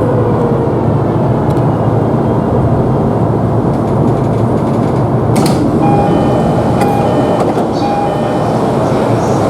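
Steady noise of an E233-3000 series train at a platform, with a falling whine in the first second. About five and a half seconds in there is a sharp click, followed by the train's electronic door chime sounding a run of short repeated tones for about two and a half seconds.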